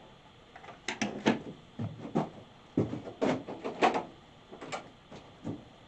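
Irregular clicks and knocks of hand tools and a distributor being handled and set down on a workbench, with the loudest knocks a little past the middle.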